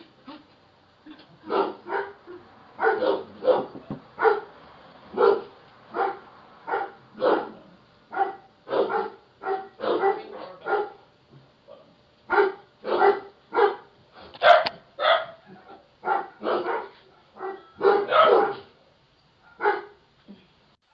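Dogs barking repeatedly in short, irregular volleys at a person at the front door, heard through a video doorbell's microphone.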